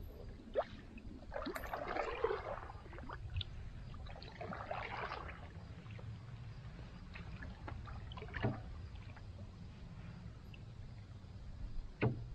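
Wooden canoe paddle strokes swishing through the water, loudest about two and five seconds in, with a few sharp knocks, the last near the end.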